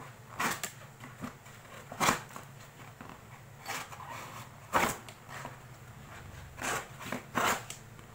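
A Gerber Ultimate Pro survival knife's stainless steel blade slicing through rolled-up magazine paper. About six quick, irregularly spaced cuts sound as short swishes and rips, the loudest about two and nearly five seconds in, with paper rustling between them.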